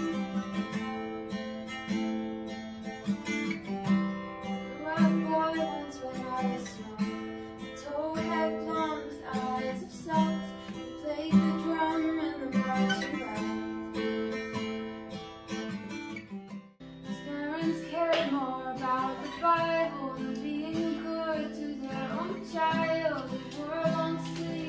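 Guitar played, a picked melody over strummed chords. About two thirds of the way through it breaks off for a moment and a different passage starts.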